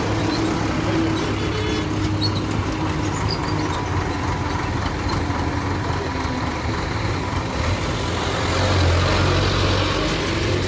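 Diesel engine of a JCB backhoe loader running steadily, then louder and rising in pitch for a couple of seconds near the end as it revs up.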